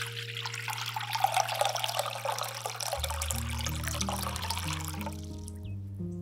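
Water poured in a steady stream from a glass jug into a glass bowl, splashing and filling it, the pour stopping about five seconds in. Soft background music plays underneath.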